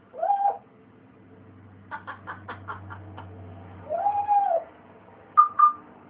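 Pet parrot calling. It gives a drawn-out note that rises and falls, then a rapid run of short clipped sounds like a laugh, then another long rise-and-fall note, and two short higher notes near the end.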